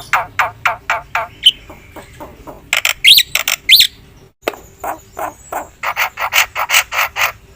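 Black-winged myna (jalak putih) singing: a rapid run of short sharp chirps, a few loud rising whistles about three seconds in, a brief break, then the quick chirping resumes.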